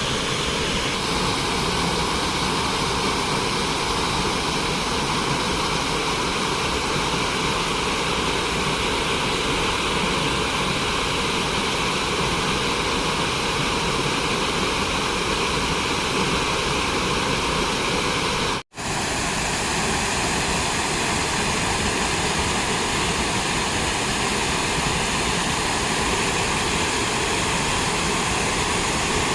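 Waterfall: a steady, even rush of falling water, broken once by a brief dropout about two-thirds of the way through.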